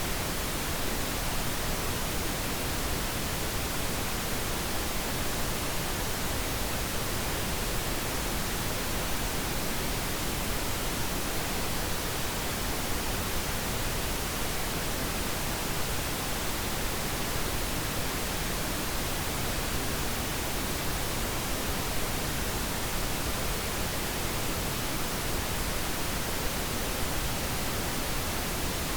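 Steady pink noise: an even, unchanging hiss across all pitches, used as a sleep aid.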